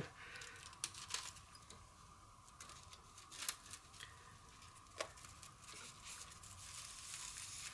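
Faint clicks and light rustling from hands working on a Quad ESL63 electrostatic speaker panel as its old mylar diaphragm comes off; a few sharp ticks stand out, about a second in, midway and at five seconds.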